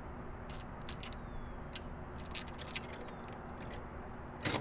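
Light metallic clicks and clinks as a metal antenna bracket is handled and fitted onto the boom, with a louder clatter near the end, over a steady low background hum.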